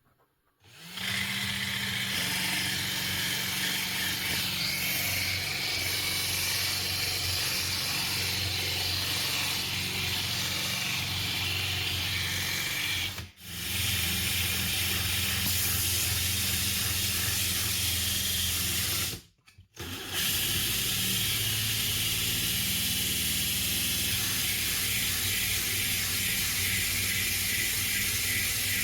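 Electric drill running steadily, spinning a wooden plane handle against coarse sandpaper: a constant motor hum under the hiss of the abrasive on the wood. It stops briefly twice, about halfway and again a little later.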